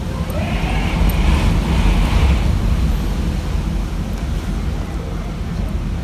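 Typhoon wind gusting outside an open screened window, with a heavy low rumble of wind buffeting the microphone. A stronger gust swells over the first two seconds, with a rushing hiss and a rising tone.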